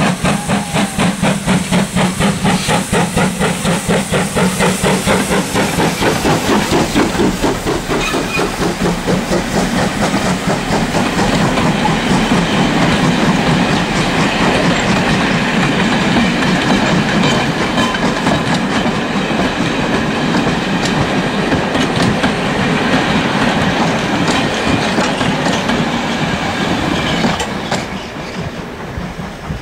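Ivatt class 2 steam locomotive 46512 working hard, its exhaust beating loudly in a rapid, even rhythm. After about ten seconds the beats blur into a steady rumble and clatter of the train on the rails, which eases off near the end.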